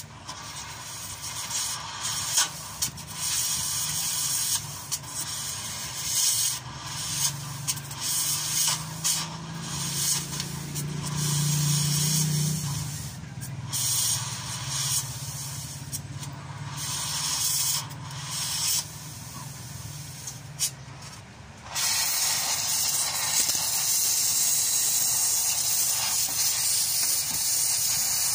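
Oxy-fuel cutting torch hissing as it cuts rusted steel of a van chassis, with crackling and popping at the cut. About three-quarters of the way through, the hiss turns louder and steady.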